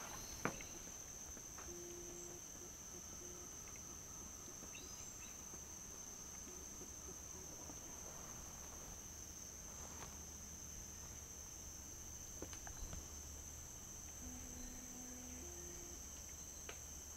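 Steady high-pitched insect drone, typical of crickets or cicadas, with one sharp click about half a second in.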